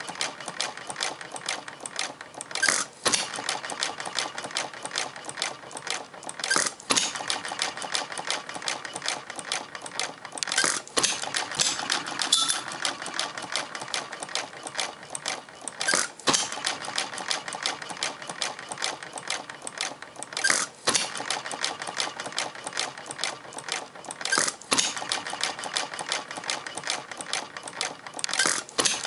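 Half-scale model Olds hit-and-miss gas engine running slow: a rapid, steady clicking, with a louder bang about every four seconds as the engine fires and then coasts between firing strokes.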